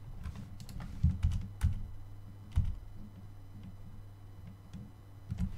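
Computer keyboard keys pressed in scattered taps, the heaviest few between about one and three seconds in, over a steady low hum.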